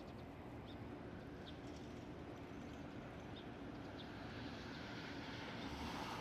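A songbird in the treetops giving short, high calls every second or so, which the listener tentatively takes for a dusky thrush. Steady traffic-like background noise grows louder near the end.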